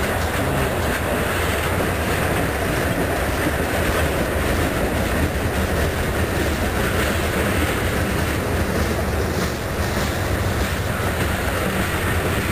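Freight train cars, covered hoppers and tank cars, rolling steadily past close by: the continuous noise of steel wheels running on the rails.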